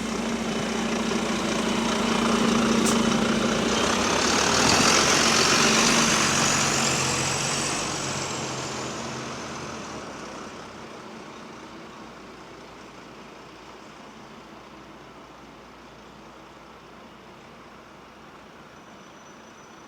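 Double-decker bus running: the engine and drive noise swell over the first few seconds, with a high whine that climbs and then falls, then die away to a low steady hum.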